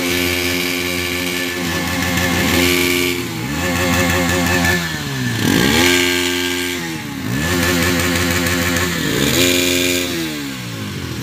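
Single-cylinder sport motorcycle engine revved hard while standing still: about five times it climbs quickly, holds flat near full revs for a second or more, then drops back, settling lower near the end.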